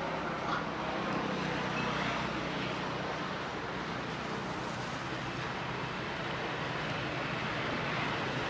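Steady engine drone with a low hum, unchanging in level, over outdoor background noise.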